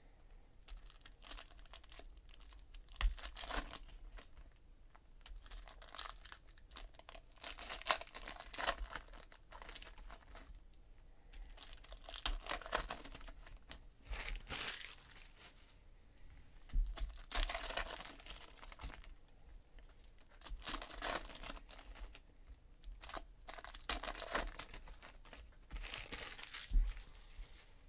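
Foil trading-card pack wrappers being torn open and crinkled, in repeated short bursts of rustling, with cards being handled in between.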